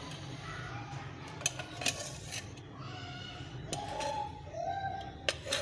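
Scattered clinks and knocks of kitchen dishes and utensils, with sharp ones about a second and a half in, around two seconds in, and one near the end, over a low steady hum.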